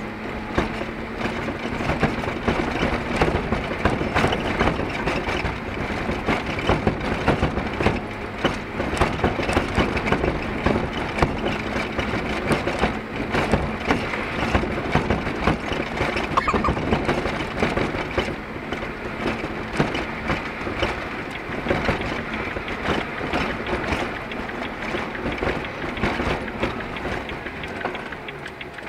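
Scania R-series truck cab, heard from inside while driving, knocking and rattling continuously over the engine's running noise. The uploader puts the rattle down to a defective cabin suspension.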